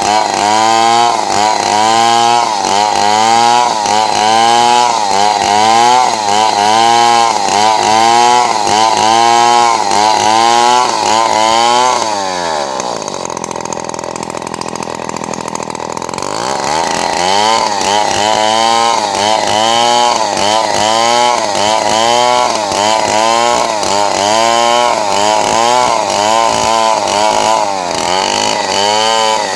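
Two-stroke chainsaw ripping boards at high revs, its pitch rising and falling over and over, about one and a half times a second. About twelve seconds in it drops to idle for roughly four seconds, then revs back up and carries on cutting.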